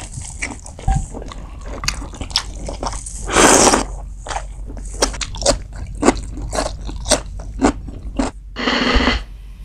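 A person eating close to the microphone: biting and chewing spicy pork curry and rice, with many short wet mouth clicks and smacks. There are two longer, louder noisy stretches, one about three and a half seconds in and one near the end.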